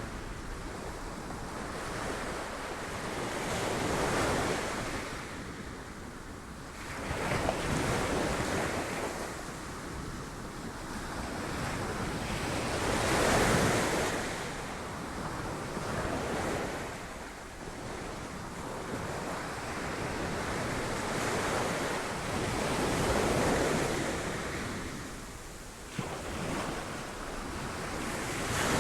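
Sea waves breaking on rocks, the surf rising and falling in surges every few seconds, with wind on the microphone.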